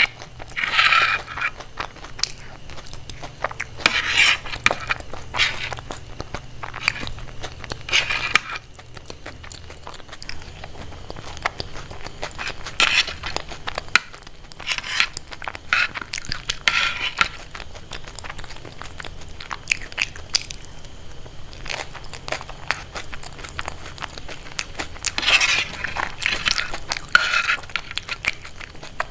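Close-miked eating: crunchy bites and chewing, a stream of small mouth clicks broken by louder crunches about a second in and then every few seconds.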